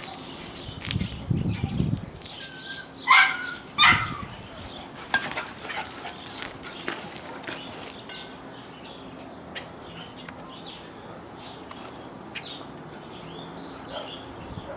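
Puppy barking: two sharp barks about three and four seconds in, after a brief low rumble. Then only faint small sounds.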